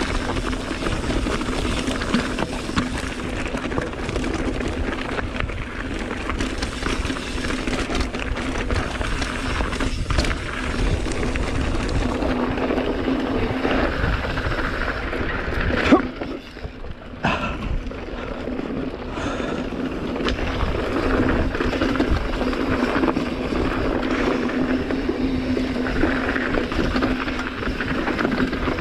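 Mountain bike riding down a loose, rocky trail: tyres rolling over gravel and rock, with the bike rattling. The noise runs steadily, with a sharp knock a little past halfway and a brief drop in level just after it.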